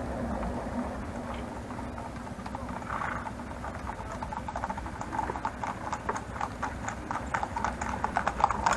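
Hooves of a team of horses pulling a carriage clip-clopping on asphalt. They start about halfway in as a rapid run of sharp clicks and grow steadily louder as the horses approach.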